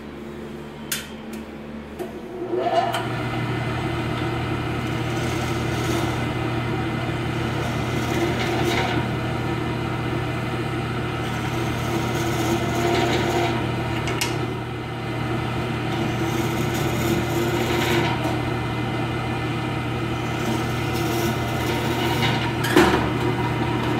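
Bench drill press motor running steadily while a countersink bit tapers the holes in a laminated multiplex plywood slingshot frame. The motor comes up louder about two and a half seconds in, and the bit gives short rasping bites as it cuts into the wood, the sharpest near the end.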